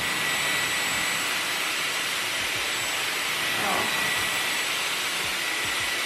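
Dyson Airwrap hair styler running on its curling barrel, a steady rush of air with a thin high whine from its motor.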